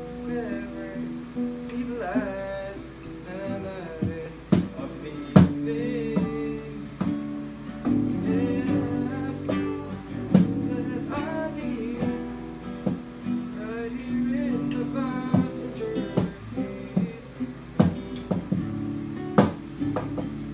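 Acoustic guitar being strummed, with sharp hand slaps on a wooden cajón at uneven intervals and a voice singing along.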